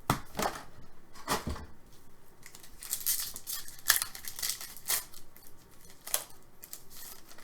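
Hockey trading cards being handled and flipped through: irregular dry swishes and snaps of card stock sliding against card stock.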